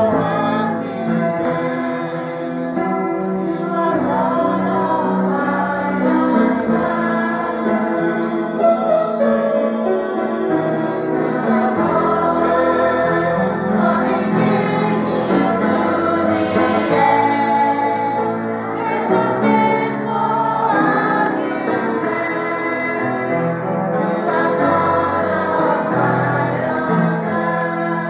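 A choir singing a gospel song, many voices in harmony.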